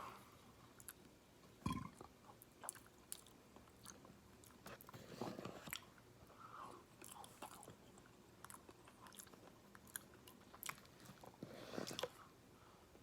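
A person chewing fried chicken close to the microphone: crunching, with wet mouth clicks and smacks throughout. There is a single louder thump about two seconds in.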